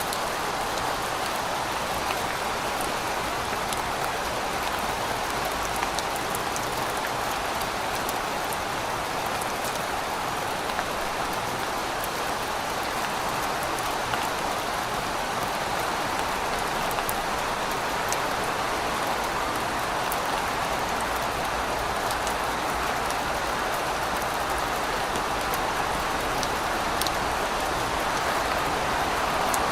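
Steady rain falling: a dense, even hiss with scattered individual drop ticks.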